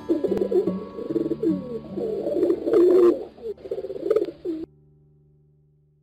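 Feral pigeons cooing, several low, wavering coos overlapping, over faint background music. The cooing stops suddenly about four and a half seconds in.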